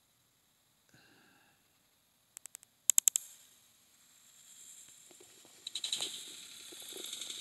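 Handling noise from a phone being moved and covered: a quick run of sharp clicks about three seconds in, then rustling and knocking that grows steadily louder.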